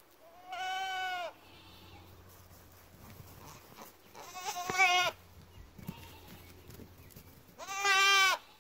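Goat bleating three times, each call about a second long with a wavering pitch.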